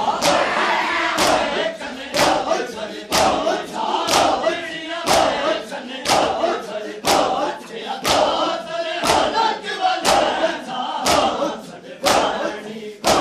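Matam: a crowd of men beating their chests with open hands in unison, one loud slap about every second, while they chant a noha together between the strikes.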